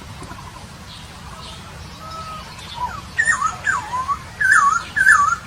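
Poksay Papua songbird singing: a few soft whistles, then a run of loud, clear whistled phrases that swoop down and back up, in the second half.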